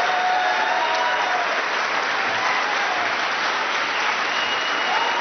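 Long, steady applause from a large crowd greeting the announced vote result, with a few voices calling out over it.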